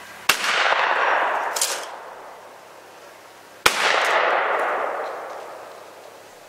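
Two shotgun shots about three and a half seconds apart, each a sharp crack trailing off in a long echo.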